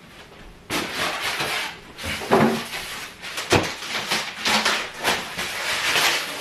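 Rustling and scraping noises from handling, with a sharp knock about three and a half seconds in.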